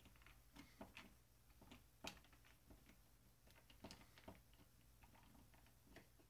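Faint, irregular clicks of a hand screwdriver turning a screw through a metal mounting plate into a wall stud.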